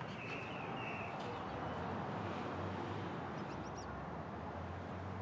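Steady outdoor background noise with a few short high bird chirps in the first second and again about three and a half seconds in.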